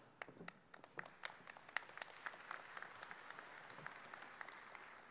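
Faint audience applause: many separate claps over a soft haze, thinning out and dying away near the end.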